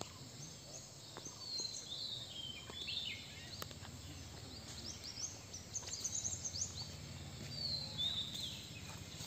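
Birds calling in a forest: several clusters of short, quick chirps and falling whistles, over a low steady hum.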